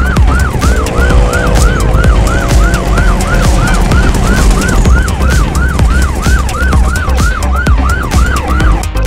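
An electronic siren yelping, about three quick rising-and-falling wails a second, stopping just before the end. It is a passing warning to the race car ahead. Underneath is the loud rumble of the race truck's engine running at high revs.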